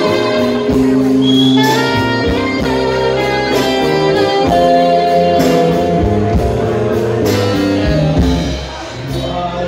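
Live band playing an instrumental passage, a saxophone holding sustained melody notes over electric guitar and a drum kit keeping a steady beat.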